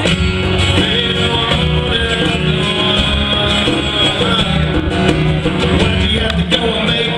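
Live band playing an instrumental passage in a country-rock style, with electric guitars over bass and drums.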